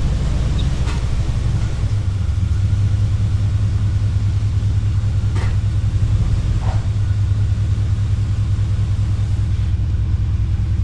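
Oldsmobile 307 V8 in an '87 Cutlass Supreme idling with a steady low rumble, which grows stronger about two seconds in.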